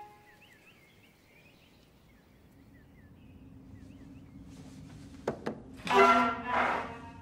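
Faint bird chirps, with a low steady hum coming up underneath. About five seconds in, two sharp knocks are followed by two loud scraping sounds of wooden furniture dragged on a hard floor.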